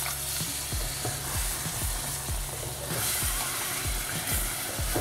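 Mutton curry sizzling and bubbling in a pot as hot water is poured in, then a spatula stirs through the thick gravy. Background music with a steady beat plays underneath.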